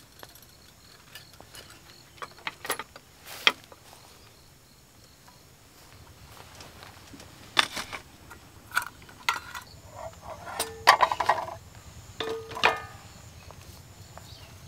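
Scattered clinks and knocks of camping cookware being handled: metal cups, a stainless wire basket and pans set down and moved on a wooden rack, a few with a short metallic ring. They are sparse at first and come thicker in the second half.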